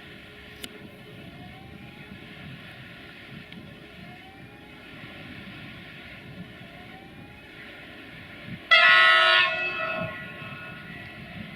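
Electric freight locomotive standing or moving slowly with a steady hum, and a faint rising whine that comes back about every two seconds. Near the end it gives one short, loud blast on its horn, which fades out over a couple of seconds.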